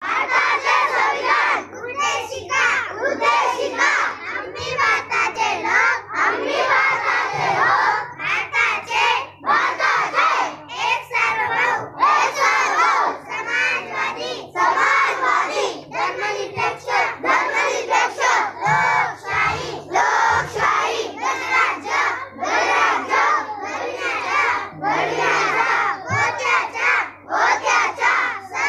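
A group of young children chanting loudly together in unison, in short rhythmic phrases.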